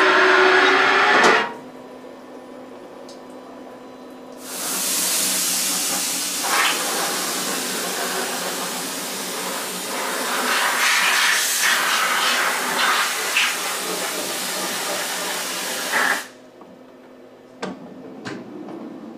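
Coolant splashes for about a second and a half. After a short pause, a compressed-air blow gun hisses loudly for about twelve seconds, blasting coolant off a freshly machined billet aluminum cylinder head, then cuts off suddenly.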